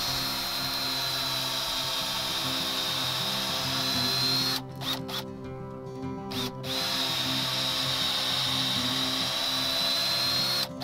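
Power drill boring a tap hole into a tree trunk for sap, running with a steady high whine in two long runs of about four seconds each, with a pause of about two seconds between them.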